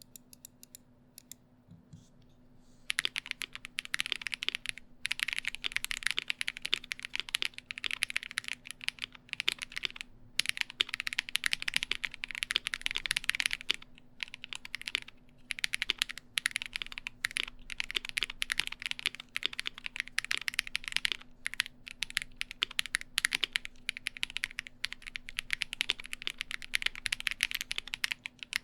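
Typing on a GMMK Pro gasket-mount mechanical keyboard with lubed Ice Cream switches (Aqua King housings, Cream stems), GMK keycaps and the stock aluminium plate, a clacky sound. A few single key presses, then from about three seconds in fast continuous typing with short pauses.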